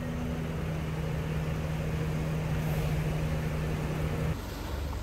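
Stationary city bus idling with a steady hum. Shortly before the end this cuts off abruptly to a deeper, noisier rumble.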